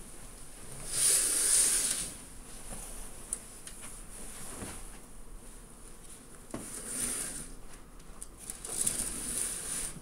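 Curtain being drawn open by hand: three swishes of noise, the loudest about a second in, with a few light knocks in between.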